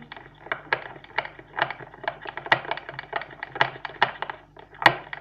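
A spoon stirring a mixture of shampoo and salt in a container, clicking against the container about twice a second.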